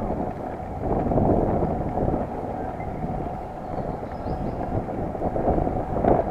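Wind buffeting the microphone of a road bike riding along at speed, an uneven rumbling rush that swells about a second in and again near the end.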